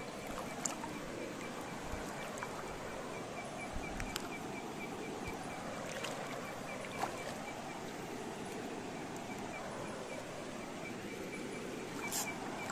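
Steady rushing of river water, with a few faint clicks and knocks.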